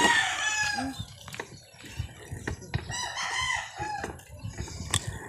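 Rooster crowing: one drawn-out call right at the start and another about three seconds in, with a few short knocks in between.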